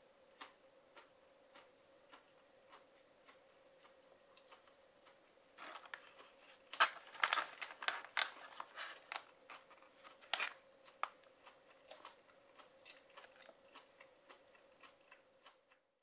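Foil-lined plastic snack pouch crinkling as it is folded closed by hand, a dense crackle in the middle, with soft evenly spaced clicks of chewing before and after. A faint steady hum runs underneath.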